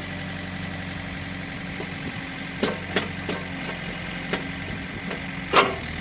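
Backhoe engine idling steadily, with several sharp knocks as the bucket works. The loudest knock comes near the end.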